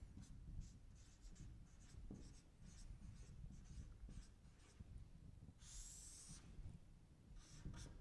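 Faint marker pen writing on a whiteboard: a run of short, quick strokes as a word is written, then one longer stroke about six seconds in as it is underlined.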